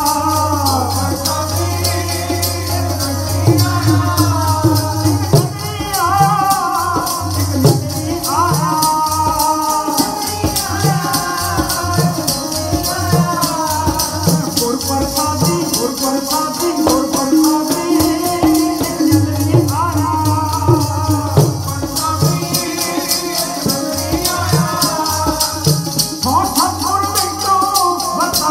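Sikh kirtan: men singing a hymn to two harmoniums, with tabla keeping a fast, crisp rhythm over a held low drone.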